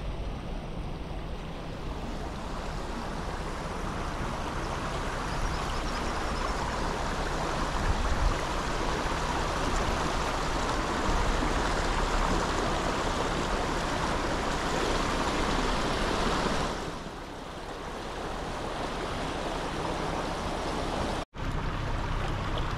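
Four-wheel drive wading across a flooded causeway: a steady rush of water churning against the wheels and body, with the engine running low underneath. The water noise eases about 17 s in, and the sound cuts out for an instant near the end.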